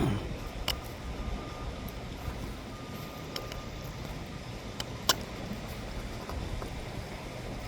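Mack front-loader garbage truck with a McNeilus body, its diesel engine running steadily, with a few sharp clanks, the loudest about five seconds in.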